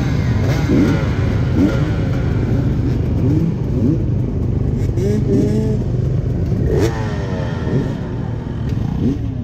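Many off-road dirt bikes running together at a race start line, idling with repeated rising revs from different bikes.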